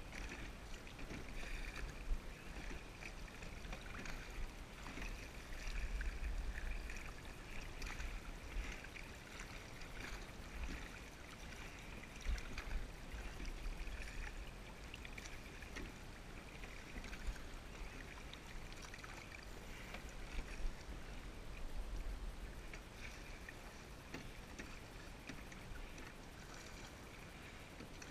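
Single sculling boat being rowed: sculling oar blades dipping and pulling through the water with light splashing and gurgling, a few sharp knocks from the oars and rigging, over a low rumble that swells and fades.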